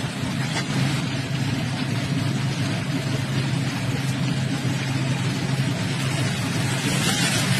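A motor vehicle's engine running steadily with a low hum, under a haze of road noise; the hiss grows louder near the end.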